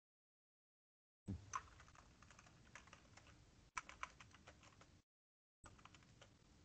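Typing on a computer keyboard: a run of quick key clicks starting about a second in, breaking off to dead silence for half a second near the five-second mark, then resuming.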